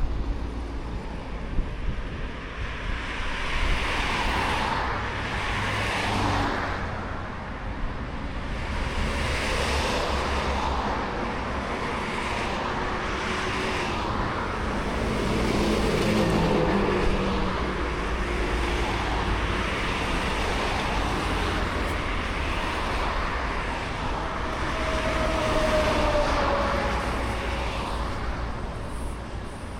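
Road traffic passing in a string of swells that rise and fade every few seconds, over a steady low rumble.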